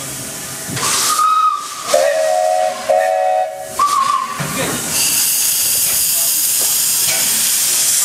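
Two steam whistles of different pitch on double-headed steam tram locomotives: a high whistle for about a second, then two blasts of a lower whistle, then a short high note again. From about five seconds in there is a steady loud hiss of steam blowing from the locomotives' open cylinder drain cocks.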